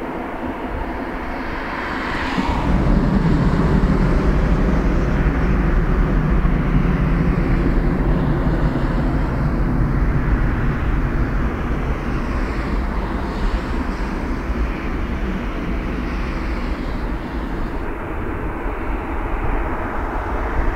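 Jet airliner's engines spooling up to takeoff thrust about two seconds in, then running at full power as a loud, steady deep rumble during the takeoff roll that eases a little toward the end.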